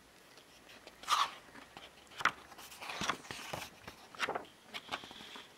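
Paper rustling as a book's page is handled and turned over: several short rustles spread through a few seconds.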